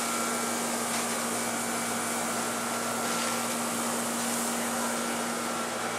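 A steady, unchanging hum with an even hiss over it, like a running fan or motor.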